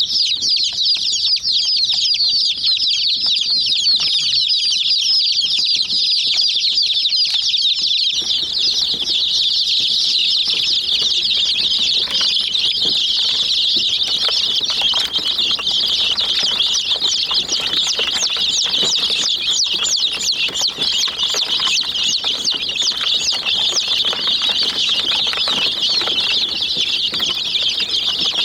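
A brood of chicken chicks peeping nonstop, many high, short, downward-sliding calls overlapping. From about eight seconds in, a background hiss and light scattered ticks join in underneath.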